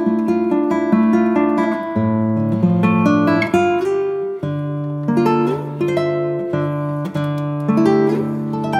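Background music: a guitar piece of plucked notes and strummed chords, changing chords every second or two.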